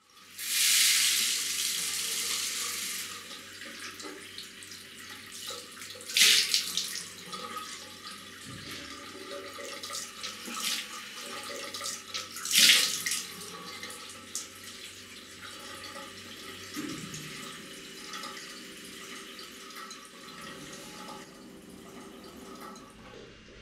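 Water runs from a wall-mounted bathroom mixer tap, gushing hardest just after it is turned on. Two louder splashes come as water is scooped onto the face. The flow cuts off near the end as the tap is turned off.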